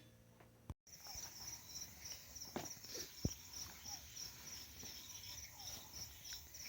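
Faint crickets chirping in an even, pulsing high trill, starting about a second in, with a couple of soft clicks.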